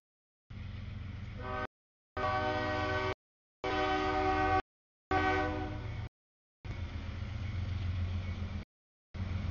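CSX freight diesel locomotive sounding its multi-note air horn at the grade crossing for about four seconds, the chord sagging slightly in pitch as the locomotive passes, over the low rumble of its diesel engine, which grows louder near the end. The audio cuts out in short gaps about every second.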